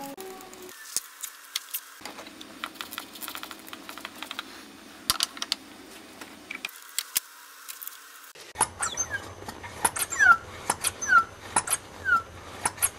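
Trigger spray bottle clicking as it squirts soapy water over cooling-system joints. About eight seconds in, a hand-pump cooling-system pressure tester is fitted to the radiator neck and pumped, with sharp clicks and a few short falling squeaks.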